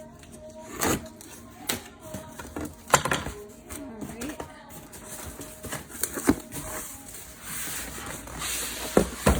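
A cardboard box being opened and handled by hand: scattered knocks and clicks, with a longer stretch of rustling near the end.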